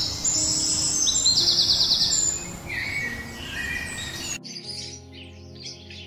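Small birds chirping in quick, high notes, with a fast trill loudest in the first two seconds and softer chirps after, over soft background music. About four seconds in the sound changes abruptly to quieter music with faint chirps.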